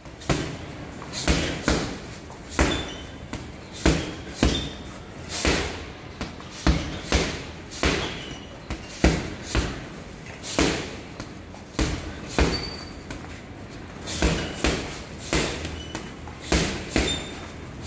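Boxing gloves punching a Fairtex heavy bag in quick combinations: about thirty thuds, mostly in pairs and threes.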